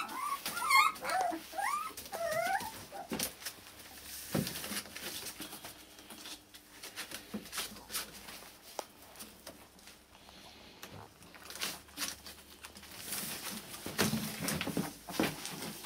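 Akita whimpering in several short, wavering high cries during the first couple of seconds, followed by faint rustling and light taps of dogs moving about in a whelping box.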